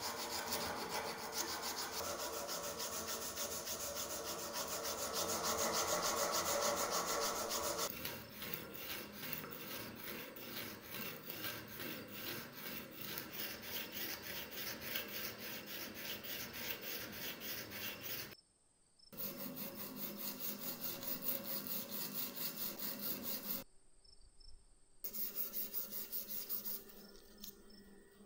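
Abrasive paper being rubbed by hand over the flat metal blade of an old rusty hand tool clamped in a vise, sanding off rust. The sound starts as a continuous scraping and, after about a third of the way in, turns into quick, even back-and-forth strokes that break off briefly twice.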